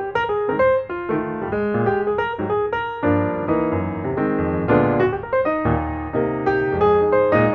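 Background piano music, a steady run of notes over chords that grow fuller about three seconds in.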